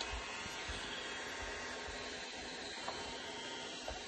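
Electric heat gun blowing steadily, a constant fan hiss, with a few faint ticks over it.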